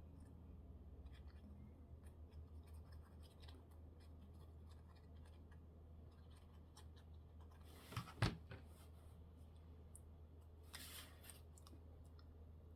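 Quiet paper crafting: faint scissors snipping and paper rustling, with a sharp tap on the work surface about eight seconds in and a short swish about three seconds later, over a steady low hum.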